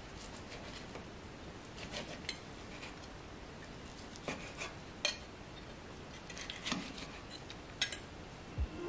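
Santoku knife slicing through a cooked chicken thigh on a wooden cutting board, with a fork holding the meat: scattered soft taps and clicks as the blade meets the board and the metal touches, a close pair near the end.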